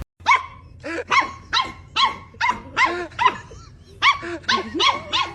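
A dog barking repeatedly in short, high yaps, about a dozen in quick succession.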